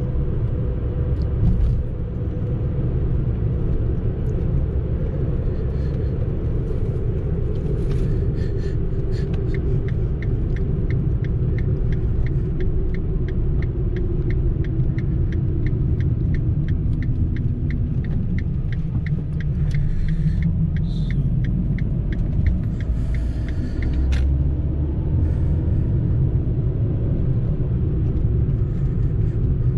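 Fiat Panda heard from inside the cabin while driving: steady engine and road rumble. A regular ticking, about three a second, runs for some fourteen seconds in the middle.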